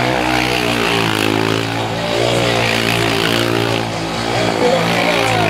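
Quad bike engine held at high, steady revs as it spins a burnout circle, with the pitch shifting a little now and then.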